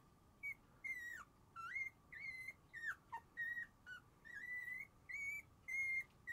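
Shiba Inu puppies whimpering: a string of about a dozen short, high-pitched whines, some sliding up or down at their ends, over a faint steady hum.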